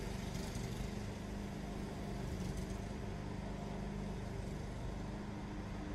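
Steady low mechanical hum with a faint held low tone, unchanging and without any distinct events.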